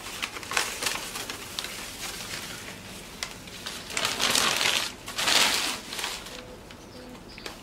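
Newspaper and shredded-paper packing rustling and crinkling as it is pulled off a plant by hand, with two louder bursts of rustling about four and five seconds in.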